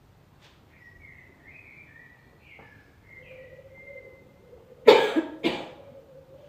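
A person coughing twice, two short loud coughs about half a second apart, near the end. Faint high chirps come before the coughs.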